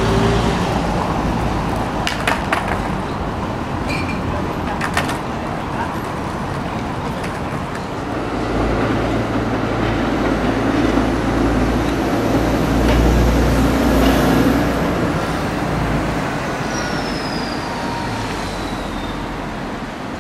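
City street traffic with Helsinki trams passing: a steady low rumble of trams and road vehicles, with two or three sharp clicks a few seconds in and a louder rumble a little past the middle as a tram goes by. Near the end a thin high squeal falls in pitch.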